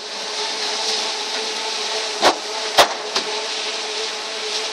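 Truck-loading belt conveyor running with a steady machine hum as bags ride up the belt. Two sharp knocks about half a second apart stand out a little past halfway.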